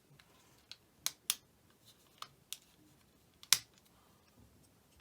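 Plastic back housing of a Samsung C3590 flip phone being pressed and snapped into place: a series of sharp, uneven clicks, the loudest about three and a half seconds in.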